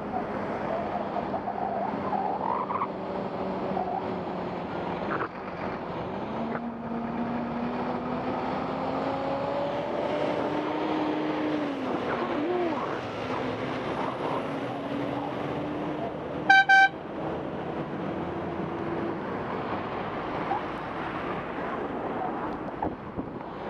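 Wind and road noise from riding a bicycle in traffic, with passing motor vehicles whose engines rise and fall in pitch as they go by. About sixteen and a half seconds in, a horn gives two short, loud, high-pitched toots.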